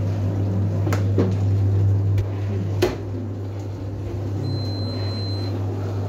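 Steady low hum of a running dishwasher. Over it come light clicks and knocks from its wire racks and door being handled, with the loudest knock about three seconds in. About four and a half seconds in, a thin high electronic tone sounds for about a second.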